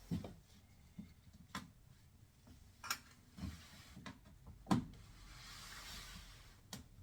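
Hands working a rubber door boot gasket onto a front-load washer: several knocks and taps, the loudest a little before five seconds in, then a couple of seconds of rubbing.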